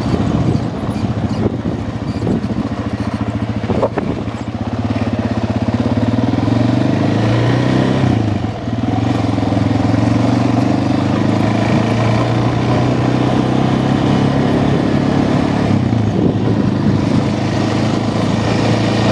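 ATV engine running steadily, its pitch rising and dipping a few times as the throttle changes.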